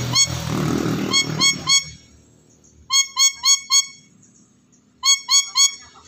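Black-capped lory calling: short, high-pitched notes, about four a second, in runs of three or four with pauses between. Background music under the first two seconds.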